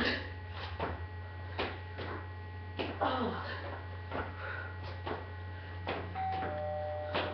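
Sneakered feet landing on a garage floor over and over during jump squats and jumping lunges, a thump roughly every 0.8 s, over a steady low electrical hum. Near the end a mobile phone starts ringing with a couple of steady tones.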